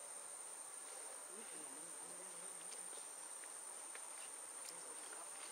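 Insects making a continuous, steady, high-pitched drone.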